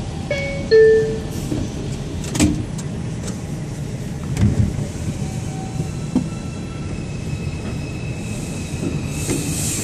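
Inside an R142 subway car pulling out of a station: steady rumble of wheels and running gear, with a few sharp knocks from the wheels over the rails and a faint steady whine. Short electronic tones sound about half a second in, and the hiss grows louder near the end as the train enters the tunnel.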